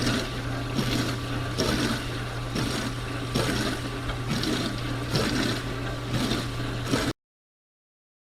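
Dishwasher running: a steady motor and pump hum under water spraying inside the tub, swishing roughly once a second. It cuts off abruptly about seven seconds in.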